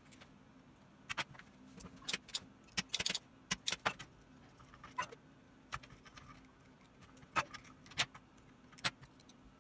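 Scattered light clicks and taps of handling an opened wah pedal, its circuit board and a soldering iron, coming irregularly and sometimes in quick clusters.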